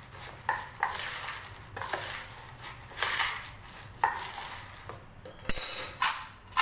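Metal spoon stirring crisp fried split chickpeas (chana dal) with salt in a stainless steel bowl, scraping and clinking against the metal. Near the end the bowl is shaken and the dry, crunchy lentils swish around in it.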